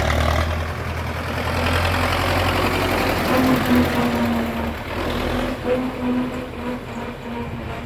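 MTZ diesel tractor running, with a steady hum that sets in about three seconds in over the engine's low rumble. The owner puts the humming on descent down to a loosened nut.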